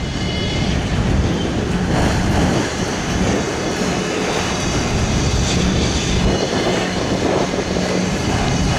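Freight cars of a CSX train rolling past on the rails: a steady noise of steel wheels on track.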